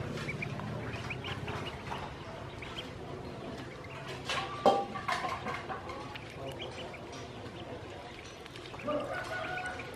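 Ducklings peeping: many short, high calls scattered throughout, with one sudden sharp sound a little before halfway.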